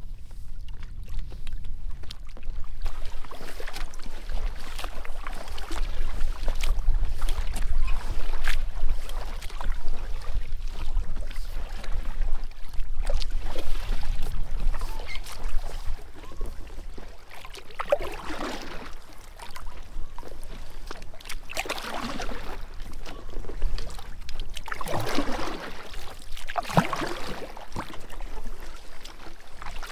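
Kayak paddling: paddle blades dipping and splashing in the water, with trickling and lapping around the hull and a low rumble underneath. The splashes come in swells a few seconds apart, louder in the last third.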